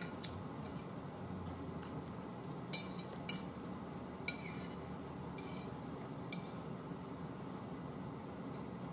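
A metal fork clinking and scraping against a dinner plate as food is picked up: a handful of light, separate clinks about a second apart.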